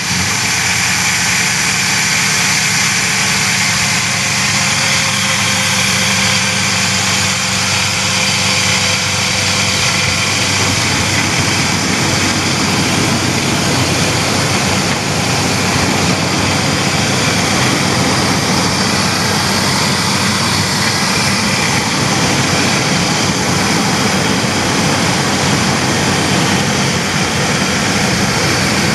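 Chevy Astro van engine idling steadily, just started from completely cold.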